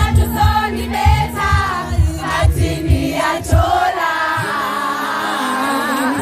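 A cappella vocal group singing in harmony over a regular low beat. About four seconds in, the beat drops out and the voices hold a long chord with vibrato.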